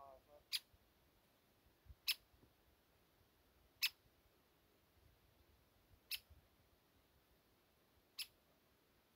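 Short, sharp high chirps, five single notes spaced about two seconds apart, over near silence, with a brief lower pitched call at the very start: a small bird's call notes.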